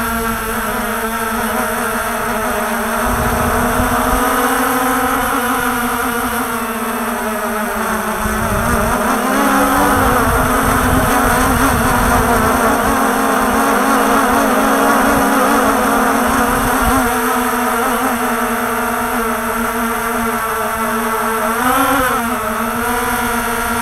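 Walkera TALI H500 hexacopter's motors and propellers whining steadily, heard from its onboard camera, with wind rumbling on the microphone. The pitch shifts slightly about ten seconds in and rises briefly near the end.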